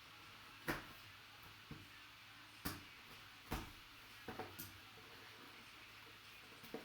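Short clicks and taps of a trading-card box and its card being handled and opened, about six in all, spaced irregularly over a quiet background.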